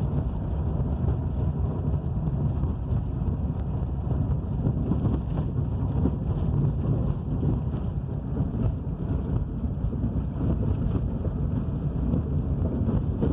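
Strong wind of a dust storm buffeting the microphone: a steady low rumble with a few faint ticks over it.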